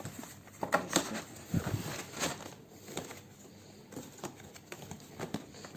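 Handling noises from the sewing machine's carrying box: scattered light knocks and clicks with some rustling.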